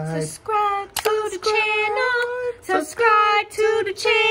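A high voice singing a few short phrases, the notes held and broken by brief gaps.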